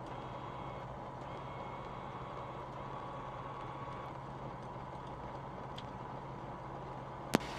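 The Flight Design CTSW's Rotax 912 four-cylinder engine idling on the ground, heard as a steady drone through the cockpit intercom audio. A single sharp click comes near the end.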